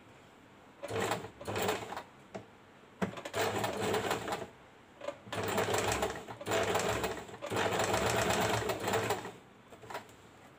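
Electric domestic sewing machine stitching an edge seam, running in several short runs that start and stop with brief pauses, the longest run lasting about three seconds in the second half.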